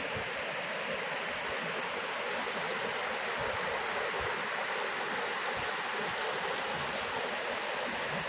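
A flooded river running fast over rapids and fallen trees: a steady rush of water.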